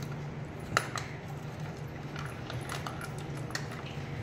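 American bully dog eating from a stainless steel bowl: scattered clinks and knocks of teeth and muzzle against the metal, the sharpest about three quarters of a second in, with a low steady hum underneath.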